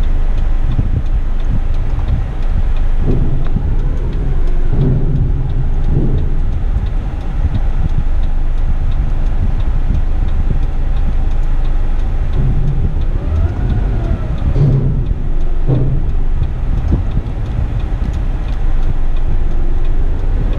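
Heavy rigid truck's diesel engine running, heard from inside the cab, with a steady low rumble. Its pitch rises and falls briefly a couple of times in the second half as the truck is worked back and forth in a tight spot.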